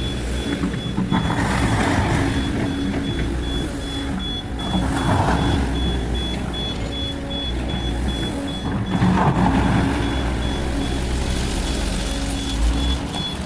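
SANY SY215C excavator's diesel engine running under working load, with a fast-repeating high electronic beep throughout and swells of louder noise about every four seconds as it works.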